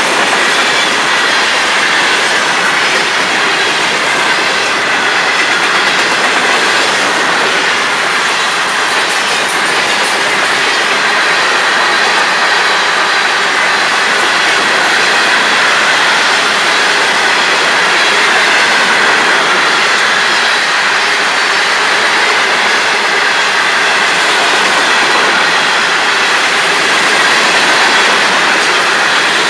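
Freight cars of a Florida East Coast Railway train rolling past, steel wheels on the rails making a steady, continuous noise with a thin high tone that wavers in pitch.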